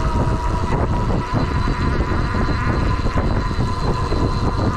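Rad Power Bikes RadRunner e-bike in motion: loud wind rumble on the microphone and road noise, with a steady high whine from the hub motor that rises slightly in pitch.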